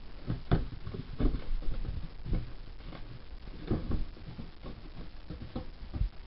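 Large cardboard toy box being handled and laid down on a carpeted floor, with irregular knocks, taps and scrapes as its end flap is worked open.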